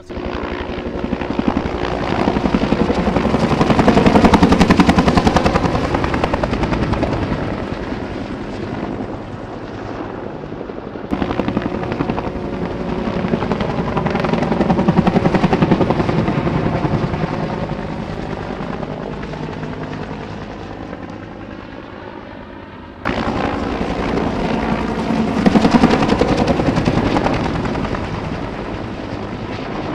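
Firefighting helicopters flying low overhead, their rotor blades beating rapidly. There are three passes split by sudden cuts, about 11 s and 23 s in. Each pass grows louder to a peak as the helicopter goes by, then fades.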